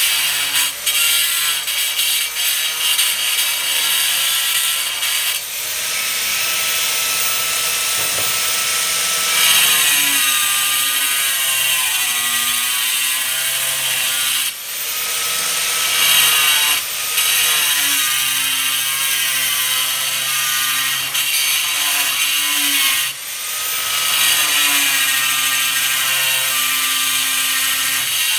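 Electric angle grinder with a diamond blade cutting into a marble slab: a loud, continuous grinding whine whose pitch wavers as the blade bites into the stone, with a few brief dips where the cut is eased off and started again.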